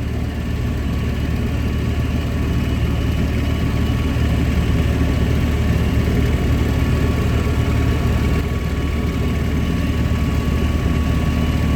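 Goodman gas furnace running with its burners firing and the blower fan on: a steady low hum with an even rush of air and a faint steady whine. The flame is burning normally, with no flame rollout.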